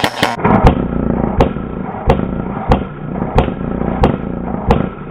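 ARP 556 electric airsoft rifle firing single shots at a steady pace, about eight sharp cracks roughly two-thirds of a second apart, over a constant low rumble.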